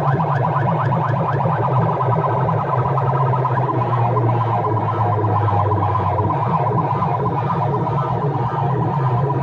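Loud DJ sound-box speakers playing an electronic competition track: a fast, repeating rising siren-like chirp over a steady deep bass tone.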